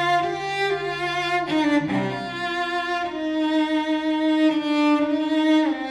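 Slow background music of long held, bowed-string notes, such as cello and violin, moving to a new note every second or so.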